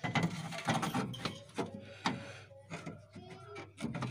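Radiator of a Maruti Alto being worked down into its mounting in the engine bay: a run of scrapes, rubs and sharp knocks as it slides against the surrounding body metal.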